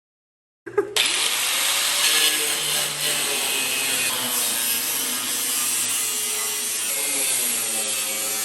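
Power saw cutting steadily through the sheet-metal body of a Suzuki Samurai. It starts abruptly about a second in and runs as a loud, continuous cutting noise.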